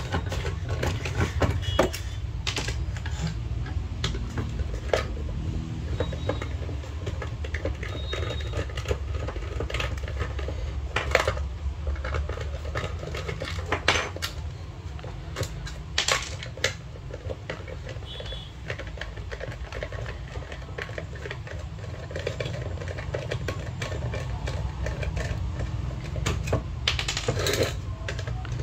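Small screwdriver and fingers handling the aluminium case of a Maruti Suzuki SX4 engine control module while its screws are taken out, making scattered light metallic clicks and taps. A steady low hum runs underneath.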